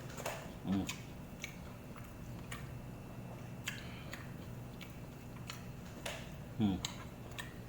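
Close-up eating sounds: chewing and mouth noises with scattered light clicks, and two short low sounds about a second in and near the end, over a steady low hum.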